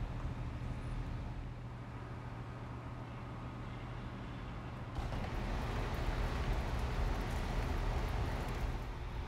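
Steady low drone of a running vehicle with a noisy rush over it. About halfway through it switches abruptly to a louder, brighter hiss.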